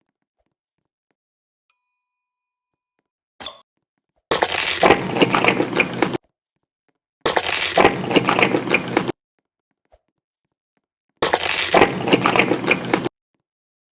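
Crunchy food being bitten and chewed close to the microphone: three loud bursts of crunching, each about two seconds long, with dead silence between them.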